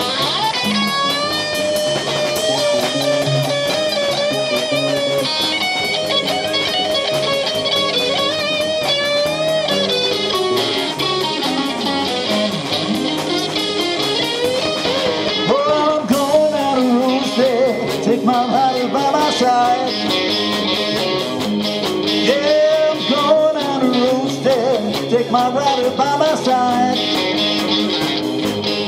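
Live blues-rock band playing, with an electric guitar taking a lead of bending notes over drums, bass and keyboards.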